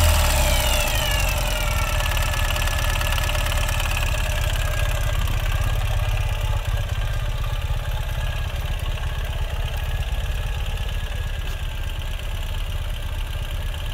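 Ural Gear Up's air-cooled boxer twin engine idling in neutral. Its revs fall back over the first couple of seconds, then it settles into a steady idle.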